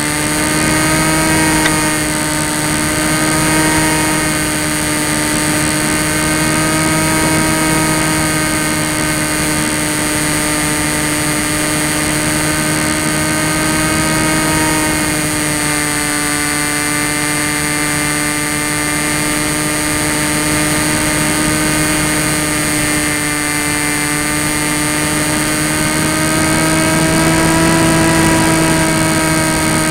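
Electric motor and propeller of a Tek Sumo foam flying wing, heard from the onboard camera in flight: a steady whine of several tones over rushing air. The pitch eases a little about halfway, then rises and grows slightly louder near the end.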